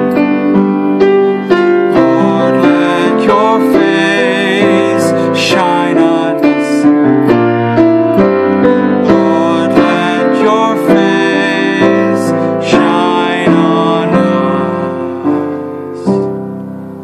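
Piano played with both hands: a flowing accompaniment of chords and melody notes. It gradually softens and ends on a final chord near the end, left ringing.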